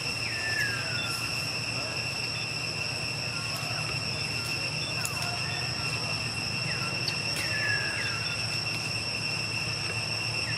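Steady high-pitched insect drone, even and unbroken, over a low outdoor rumble, with a few short falling chirps at the start, about seven seconds in and near the end.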